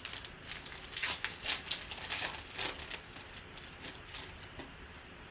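Trading cards being handled and flipped: a run of light, irregular clicks and rustles, thinning out in the last couple of seconds.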